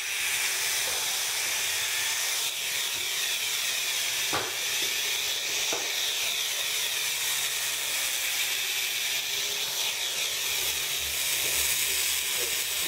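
Toy remote-control helicopter's small electric motors and rotors whirring steadily with a high-pitched, hiss-like sound. Two faint clicks come about four and six seconds in.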